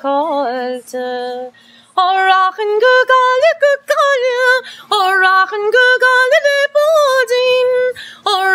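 A woman singing solo and unaccompanied in the ornamented sean-nós style of Irish traditional song, her notes wavering and decorated, with a short pause for breath about a second and a half in. A faint steady low hum runs under the voice.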